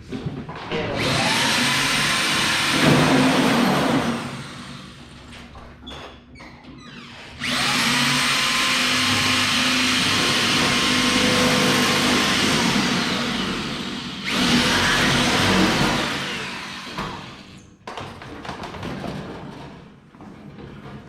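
Power drill boring into the steel of a race-car chassis in three long runs. Each run starts with the motor whining up to speed, and the middle one is the longest.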